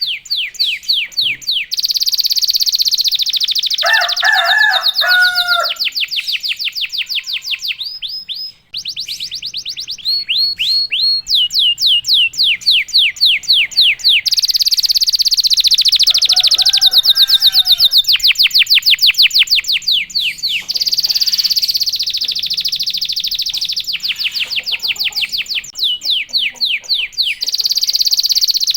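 Domestic canary singing a loud, continuous song of fast rolling trills, runs of quick falling notes repeated many times a second with only brief breaks. Lower whistled phrases come in about four seconds in and again past the halfway mark.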